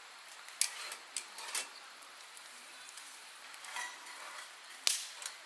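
Camp tableware and utensils being handled: a handful of sharp clinks and knocks, the loudest near the end, over a steady hiss.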